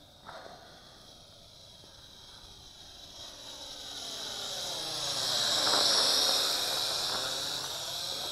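Syma X8SW quadcopter's motors and propellers whining in flight. The high-pitched buzz grows louder as the drone comes closer, is loudest a little past halfway and then eases slightly.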